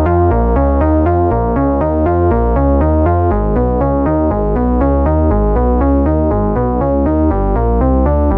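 Bright sawtooth synthesizer from u-he Hive's 'XS Brutal Saw' preset playing a fast repeating note sequence, about four notes a second, over low bass notes.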